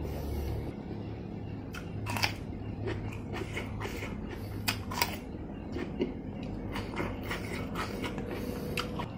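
Close-up chewing and biting of crunchy food, with irregular sharp crunches over a steady low hum.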